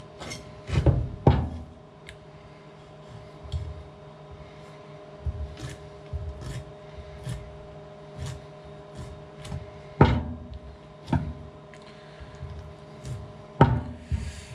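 A kitchen knife scraping and knocking against a wooden cutting board as a conger eel is filleted. It gives scattered light clicks, with sharper knocks about a second in, about ten seconds in and near the end, over a faint steady hum.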